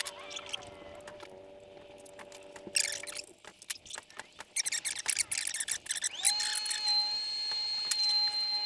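A small electric motor whining at a steady pitch, which stops about three seconds in; a run of sharp clicks and rattles follows, and about six seconds in the motor spins up again to a higher steady whine.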